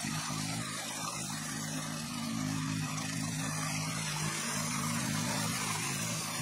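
Walk-behind power tiller's small engine running steadily under load while harrowing a flooded paddy field.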